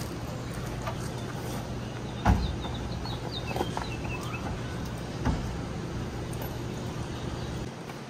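Two sharp thumps about three seconds apart over a steady low hum, with a few short bird chirps between them; the hum drops away near the end.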